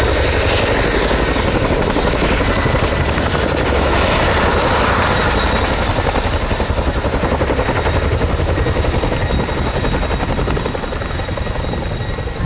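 An RAF Chinook tandem-rotor helicopter flying low and close, with the rapid chopping beat of blade slap from its two rotors over the steady whine of its twin turboshaft engines. It grows a little quieter near the end.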